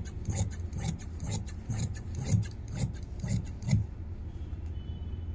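Tailor's scissors cutting through two layers of suit fabric together, a rasping snip about three times a second that stops about four seconds in.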